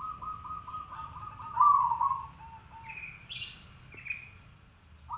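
Zebra dove (perkutut) cooing. A quick run of short, even notes leads to a louder note about a second and a half in, then trails off in a few lower notes. Other birds chirp briefly in the pause after, and the dove starts another phrase near the end.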